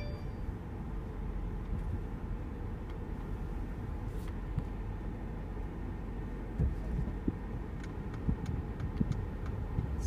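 Low, steady hum of a Mercedes-Benz SL550 rolling slowly, heard inside the cabin, with a few light knocks in the second half.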